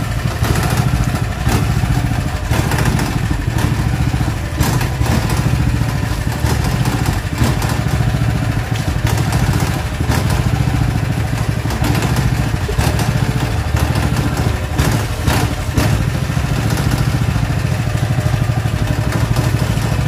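Honda GX200 single-cylinder petrol engine running steadily, driving the coconut-milk press's gearbox and screw while it is flushed with water, with a few knocks and clatters on top.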